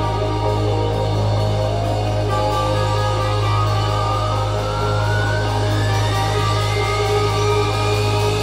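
Live rock band playing loud, sustained, droning electric guitars over bass, keyboard and drums, without vocals. About halfway through, a single high tone begins rising slowly in pitch.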